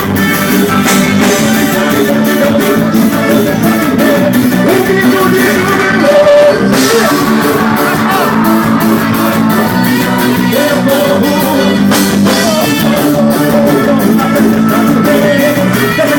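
Live forró band playing loudly with a steady drum beat and guitar, an instrumental stretch between sung lines.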